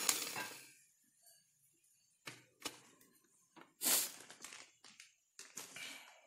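Sigma electric hand mixer's motor switched off, its whir dying away within the first second. Then scattered knocks and clinks as the mixer and its beaters are handled over the glass bowl, with a louder clatter about four seconds in.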